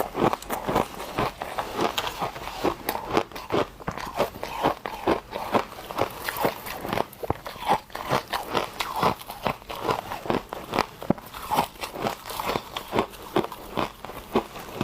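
Close-up crunching of frozen frost chunks being bitten and chewed: rapid, irregular cracks and crackles, several a second, without pause.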